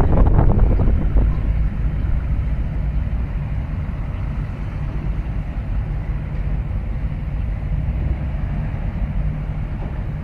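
Steady low rumble of a container port, with a louder rushing burst in the first second or so.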